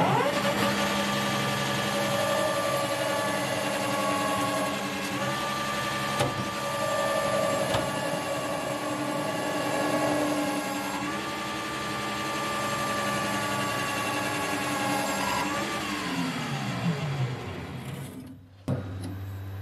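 Small metal lathe running as a boring bar takes a short cut inside a steel housing, a steady motor whine of several even tones that steps up slightly in pitch twice. Near the end the spindle winds down, the pitch sliding lower, and stops.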